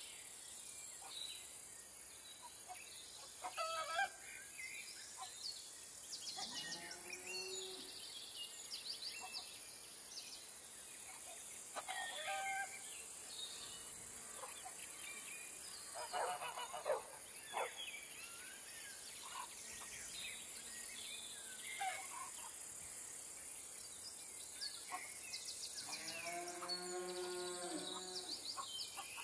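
Rural farmyard ambience: assorted birds chirping and calling at intervals over a steady high hiss, with a drawn-out, lower animal call near the end.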